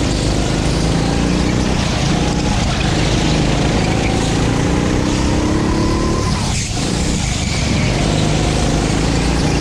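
Rental go-kart's 9 hp single-cylinder engine under throttle, its pitch climbing for several seconds, then dropping sharply about six and a half seconds in as it comes off the throttle before picking up again.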